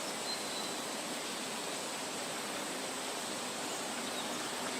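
Steady outdoor ambience: an even hiss with a faint high-pitched drone above it. A few faint, short chirps come through, one just after the start and one near the end.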